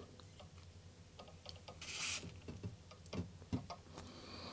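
A short hiss of silicone spray from an aerosol can, about two seconds in, applied to a printer's metal bar, among faint clicks and taps of handling.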